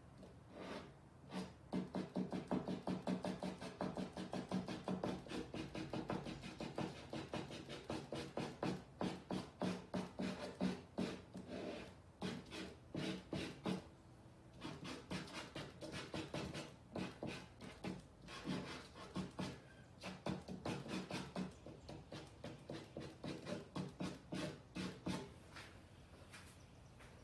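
Charcoal stick scratching across canvas in quick back-and-forth hatching strokes, several strokes a second, with a brief pause about halfway through. The strokes stop a couple of seconds before the end.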